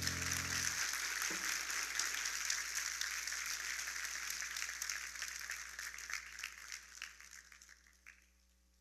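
Audience applauding with many hands clapping, starting as the held final chord of the music cuts off under a second in, then thinning and fading out in the last few seconds.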